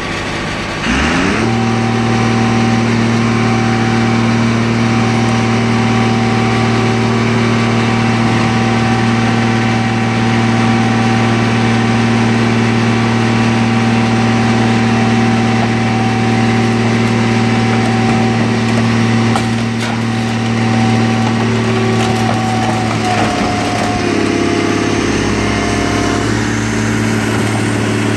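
Car crusher's hydraulic power unit revving up about a second in, then running steadily under load with a constant hum and whine as the lid presses a car flat. Its tone shifts a few seconds before the end.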